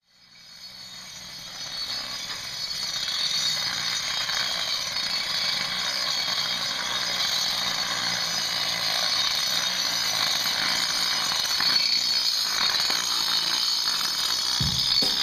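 Handheld angle grinder running steadily as its disc grinds paint off the border of a painted concrete driveway, baring the concrete so the thinset can bond. The sound fades up over the first couple of seconds.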